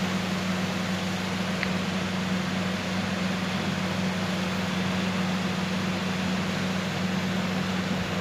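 Steady low hum with an even hiss of background room noise.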